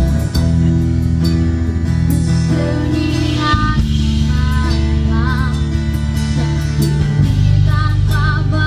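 Live band playing: a woman sings with vibrato over strummed acoustic guitar, electric guitar and a drum kit. The singing comes in a little under halfway through.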